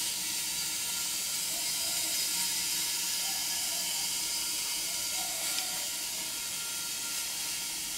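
Steady high-pitched hiss with no distinct events.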